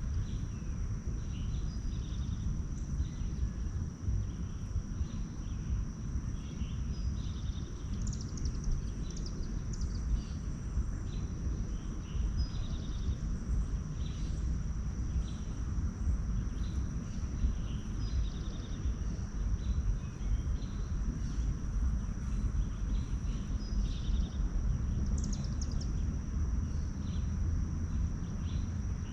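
Outdoor ambience of wild songbirds chirping in short, scattered calls, a few of them quick falling notes, over a steady low rumble and a constant thin high-pitched whine.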